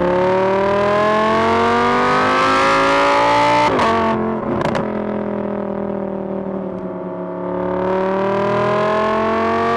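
Car engine accelerating, its pitch climbing steadily, with a brief break and drop about four seconds in, as at a gear change, then climbing again near the end.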